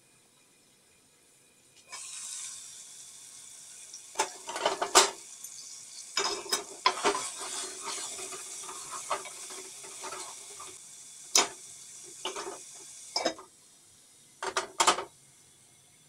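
Beef and tomato-paste base sizzling in an aluminium pot, the hiss starting suddenly about two seconds in as the lid comes off, while a wooden spoon stirs and knocks against the pot. The sizzle stops as the lid goes back on near the end, followed by two loud clanks.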